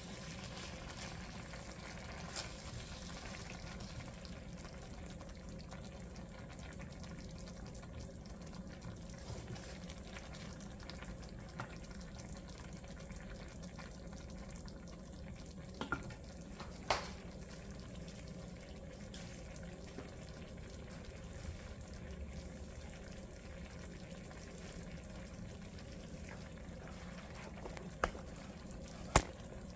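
Coconut curry broth simmering steadily in a pot, with a few short sharp clicks scattered through it.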